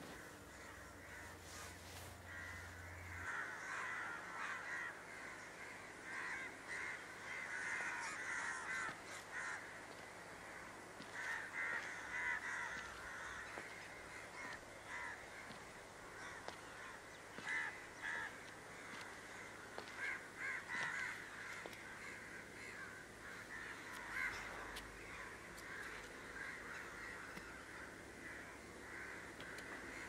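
Crows cawing over and over, in bouts a few seconds apart.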